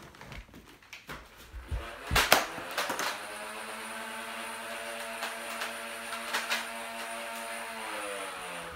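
Motorized Nerf blaster's flywheels whirring at a steady pitch, with a quick run of sharp clicks and knocks in the first three seconds as darts are fired and hit cardboard toilet roll tubes. The whir winds down in pitch near the end.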